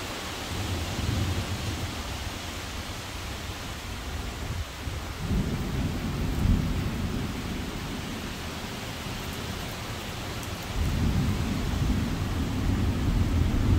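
Steady hiss of heavy rain with gusting thunderstorm wind, a low rumble swelling about five seconds in and again from about eleven seconds as gusts come through.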